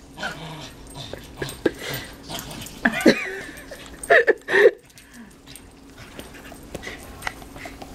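A dog yelping and whining excitedly, with short, loud high-pitched yelps about three seconds in and again from about four to nearly five seconds.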